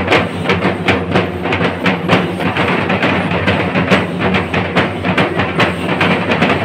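Drums beating a fast, unbroken rhythm of several strikes a second, the percussion that drives a thira dance.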